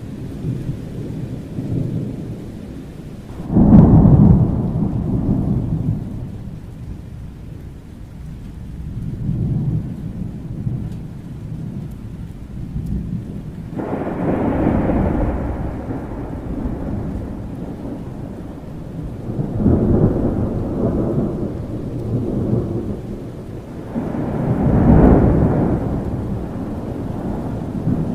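Thunderstorm: rolls of thunder over steady rain. The loudest begins with a sudden crack a few seconds in, and three more deep rumbles swell and fade later on.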